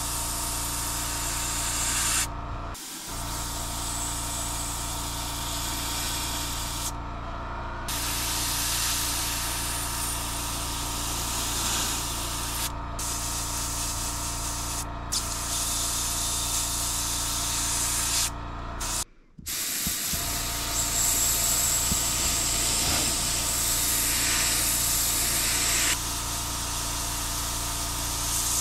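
Airbrush spraying paint at about 20 PSI: a steady hiss of air and paint, broken by several short pauses where the trigger is let off. Under it runs the steady hum of the air compressor.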